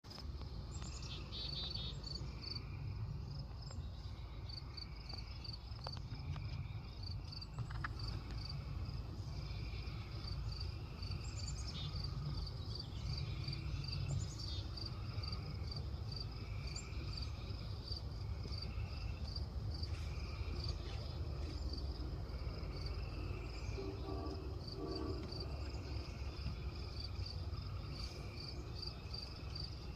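Insects chirping outdoors: a high, evenly repeated chirp several times a second, with a slower pulsing call beneath it and a steady low rumble throughout.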